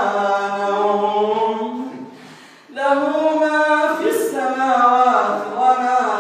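An imam's melodic Quran recitation: one male voice drawing out long, slowly bending notes in two phrases, with a breath pause about two seconds in.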